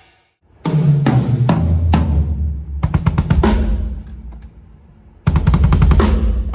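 TAMA Starclassic Bubinga drum kit played in a sound check: a fill around the toms stepping down in pitch to the floor toms, with bass drum, snare and cymbal hits. The playing breaks off into a ringing lull past the middle, then starts again with a busy groove near the end.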